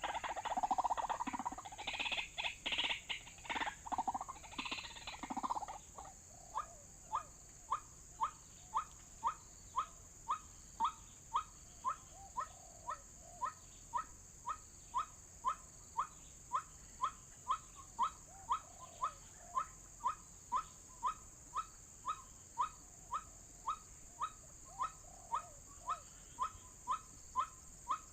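White-breasted waterhen calls: a loud, jumbled burst of calling for about the first six seconds, then a steady series of short, clipped notes repeated about twice a second.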